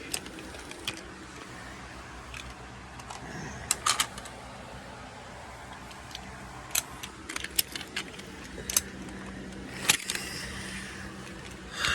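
Steady low hum of a car heard from inside the cabin, with irregular sharp clicks and light rattles every second or so.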